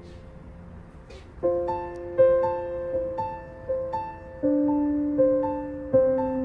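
Background piano music: after a quiet first second and a half, a slow melody of single notes about every half second over held lower notes.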